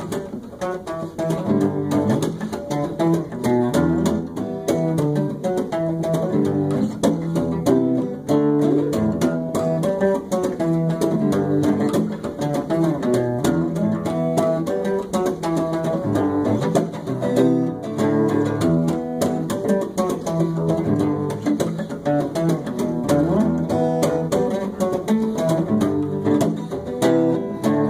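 Instrumental music: guitar playing a steady rhythmic accompaniment between sung verses.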